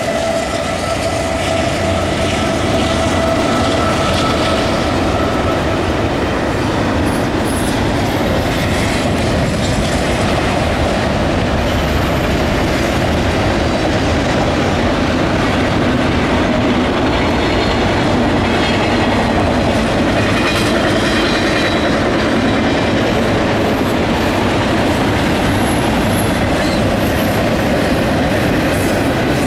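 CSX freight train rolling past at speed: a steady rumble with the clickety-clack of freight cars on the rails and faint wheel squeal at times. A steady whine, from the locomotive just passing, fades out about six seconds in.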